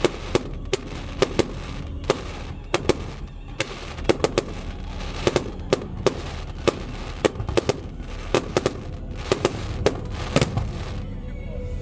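Fireworks set off on a boat, going off in sharp bangs at a few each second with irregular spacing, over a steady low rumble.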